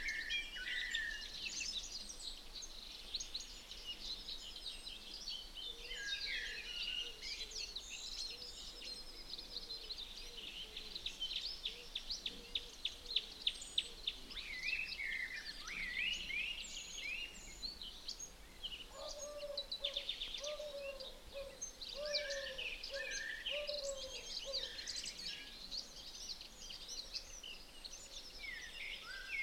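Several songbirds singing over one another, with chirps, whistled phrases and fast trills. A lower bird call repeats a run of short notes about two-thirds of the way through.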